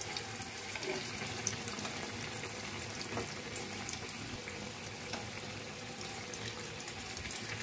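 Jangiri deep-frying in hot oil in a pan: a steady sizzle with scattered small crackles.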